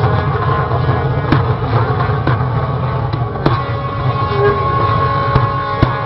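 Propane flame-effect pipes on a fire-organ art car firing: a steady roar of burning gas broken by several sharp pops as the bursts go off. About halfway through, a steady tone comes in and is held almost to the end.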